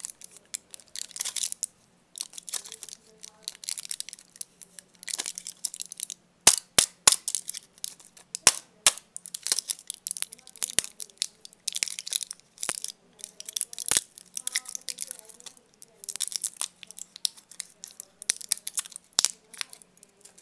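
Foil-backed plastic blister pack of white candy pellets being torn open by hand: repeated crinkling and tearing of the foil, with a run of sharp clicks and pops about a third of the way in as the pellets are pushed out of their blisters.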